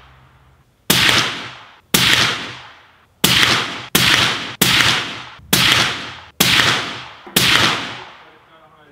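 Eight suppressed rifle shots from a .308 Remington 700 bolt-action rifle fitted with a Liberty Victory suppressor, about one a second. Each is a sharp report that fades over most of a second.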